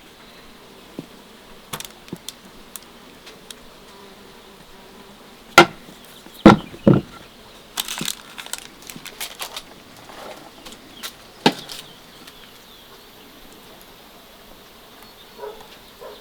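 Irregular sharp knocks and clatters over a faint steady background. The loudest three come about halfway through, half a second apart, followed by a quicker cluster of lighter knocks and one more sharp knock a few seconds later.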